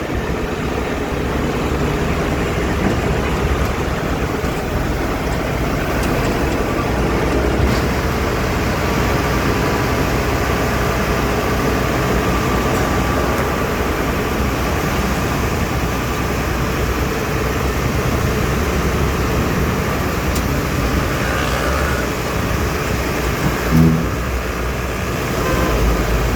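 Diesel engine of a Bull HD100 backhoe loader running steadily, with one brief louder knock about 24 seconds in.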